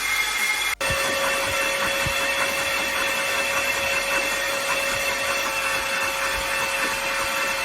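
A power tool running steadily with a constant whine; the sound cuts out for an instant under a second in and resumes at a different pitch.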